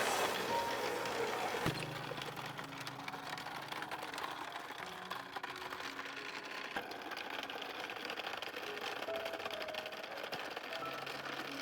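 A steady rattling noise made of many rapid small clicks, with a single knock about two seconds in, over faint background music.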